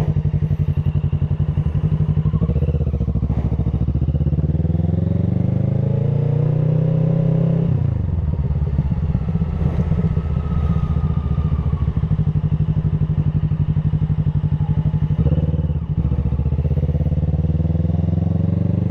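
Motorcycle engine and exhaust while riding: the engine holds a steady note, then the revs climb for a few seconds and drop suddenly about eight seconds in before it settles back to a steady run.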